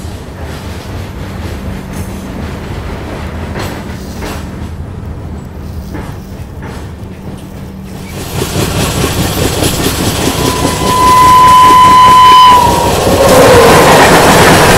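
Passenger train running, its wheels rumbling steadily on the track. About ten seconds in a locomotive horn sounds one long blast of about two seconds. Then a loud rush of noise follows as a train passes close by on the next track, and the horn starts again near the end.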